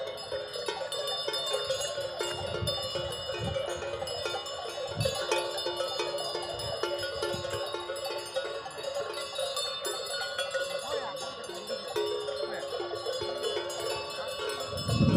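Bells hung on grazing zebu cattle ringing and clanking continuously, several tones overlapping in a shimmering jangle.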